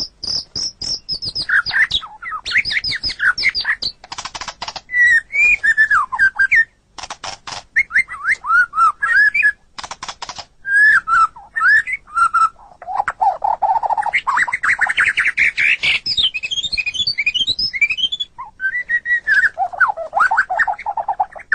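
White-rumped shama (murai batu) singing a long, varied song: clear whistled notes sliding up and down, mixed with fast rattling clicks and dense chattering runs, one phrase after another with only short breaks.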